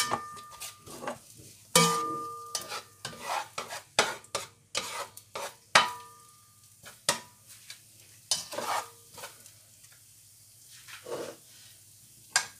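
A black spatula scraping and knocking around a stone-coated non-stick pan as it stirs minced garlic in olive oil. Some knocks set the pan ringing briefly. The strokes come thickly in the first half and only now and then after that. The garlic sizzles faintly in the hot oil between strokes.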